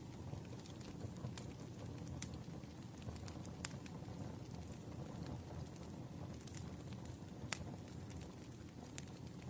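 Wood fire burning: a steady low rumble with scattered sharp crackles and a few louder pops.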